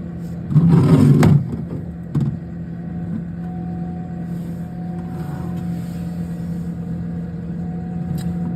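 A refrigerator runs with a steady low hum. A short loud handling noise about half a second in, a small knock near two seconds, and a faint thin whine joins after about three and a half seconds.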